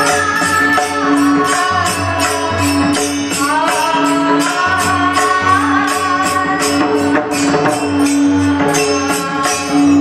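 Marathi kirtan music: jingling metal percussion keeps a steady beat under held melody tones, singing and a low pulsing drum.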